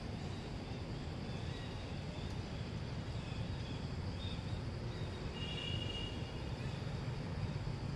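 Steady low outdoor background rumble with a few faint high chirps in the middle; no distinct event stands out.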